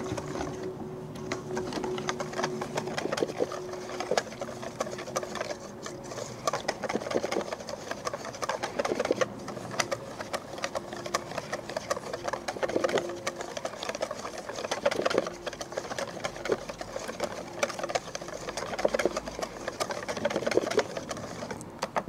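Wire whisk beating beer batter in a stainless steel mixing bowl: rapid, continuous clicking of the wires against the metal.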